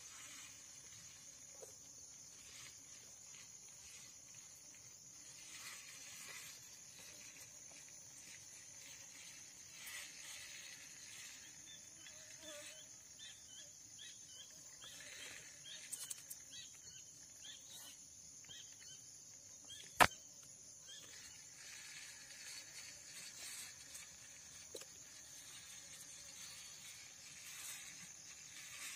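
Steady high-pitched insect buzz, with faint short chirps around the middle and a single sharp click about twenty seconds in.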